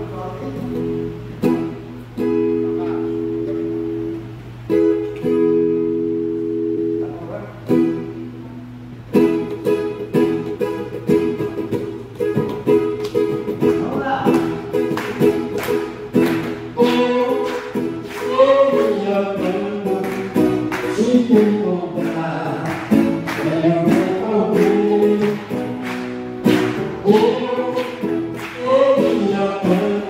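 Acoustic guitar playing a song's intro: held strummed chords with short breaks, then steady strumming from about nine seconds in. A man starts singing with the guitar a little past halfway through.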